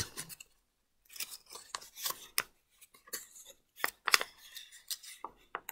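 Paper crinkling and rustling as it is folded and creased by hand, in short irregular crackles.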